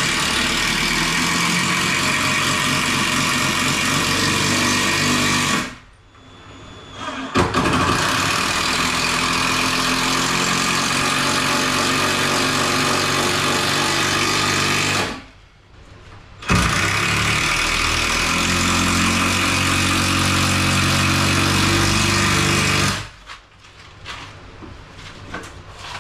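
A power driver drives 100 mm 14-gauge screws into timber. It runs in three long stretches of several seconds each, with short breaks between them, and stops near the end.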